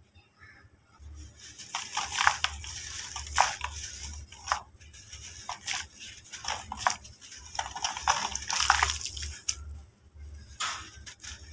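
Hands crumbling a molded dry-dirt shape into watery dirt paste: a quick, irregular run of dry crunches and soft wet squishes, starting about a second in.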